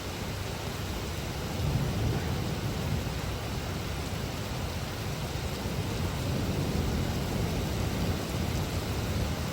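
Heavy rain falling as a steady hiss, with a low rumble underneath that swells a few times.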